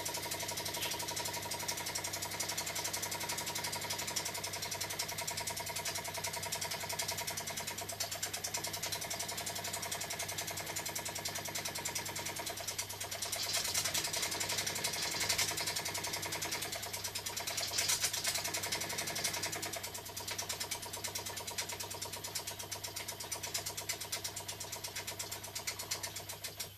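Small single-cylinder oscillating steam engine built into a walking stick, running fast on steam from a model boiler, its exhaust giving a rapid, even ticking beat. A hiss of steam swells louder for a few seconds around the middle.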